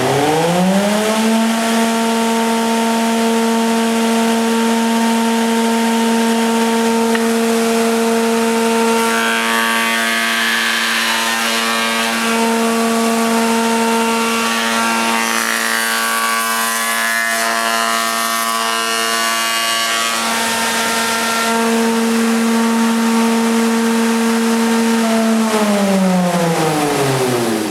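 Spindle moulder running at speed, its motor and cutter head making a steady pitched tone. From about nine to twenty seconds in, the cutter works into a wooden piece fed along the fence for a stopped (blind) moulding, adding a rougher cutting noise. Near the end the machine is switched off and winds down in a falling tone.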